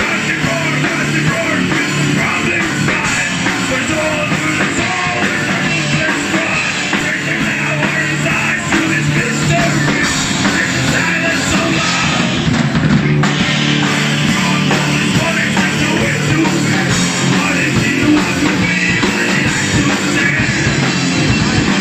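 Live rock band playing loud: two electric guitars, bass guitar and a drum kit.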